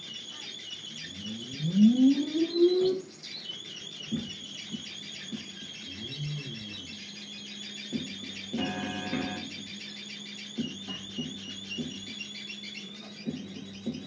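Live folktronica from a keyboard and electronics: a high, rapidly warbling electronic trill runs throughout, a loud rising swoop sounds about two seconds in, and a steady low drone note enters about halfway, with a brief bright chord-like burst about nine seconds in.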